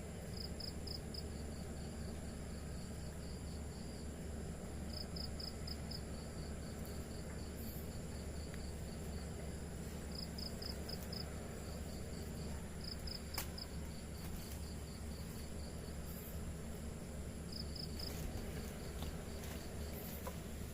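Night insects: a steady high-pitched trill, with a short run of about four chirps every few seconds, over a quiet, steady low rushing background.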